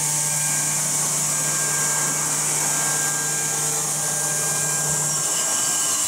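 Horizontal spindle of a CNC door lock machine milling the lock hole into the edge of a wooden door panel, a steady hum and whine under a high hiss of cutting. About five seconds in the hum cuts off and a falling whine follows as the spindle winds down.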